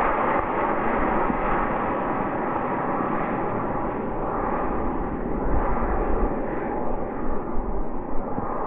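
Model rocket on an E12-6 motor in flight just after liftoff: a steady rushing roar that slowly fades.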